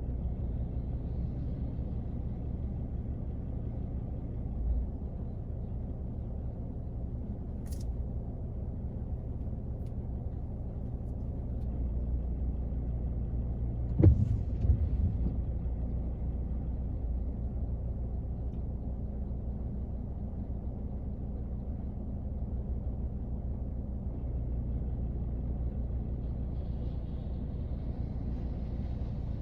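Steady low rumble heard inside a car in the rain, with a sharp knock about halfway through and a softer thump a few seconds in.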